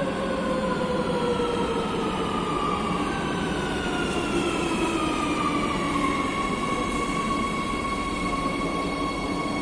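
Madrid Metro 3000-series electric train braking into the platform. Its motor whine falls in pitch over a steady rumble, then levels off into a steady hum about six seconds in as the train comes to a stop.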